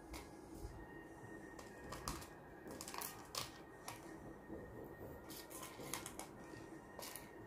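Irregular light clicks and taps, more than a dozen scattered over several seconds and loudest around the middle, over a faint steady hum.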